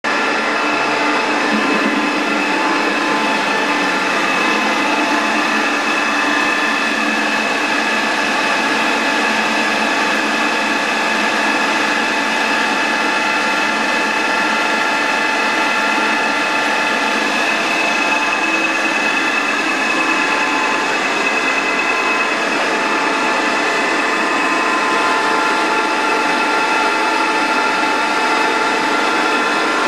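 EST Ticino ET BM 520 engine lathe running, its spindle and gearbox giving a steady mechanical whine with several held tones over a whirring hum.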